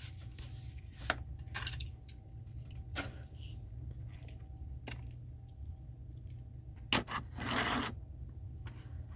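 Die-cast toy cars and their packaging being handled: scattered small clicks and taps, and a brief scrape of plastic or card a little before the end, over a steady low hum.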